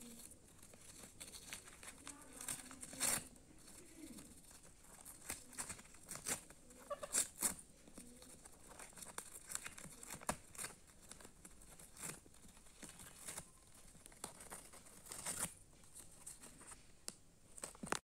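Ringneck parrot tearing and crumpling paper: irregular rustling and ripping, with sharper crackles now and then.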